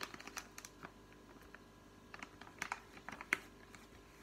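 A hand-mask sachet being torn open: an irregular run of sharp crinkles and crackles from the packet, loudest about three seconds in.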